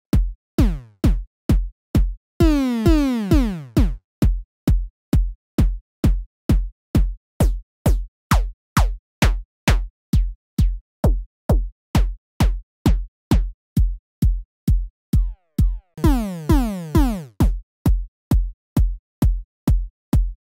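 Synthesised techno kick drum from Serum looping steadily, a little over two hits a second. Each hit has a deep sine body with a short white-noise click and a digital wavetable texture layer while different texture wavetables are auditioned. Twice a longer, pitch-falling note rings out for about a second and a half.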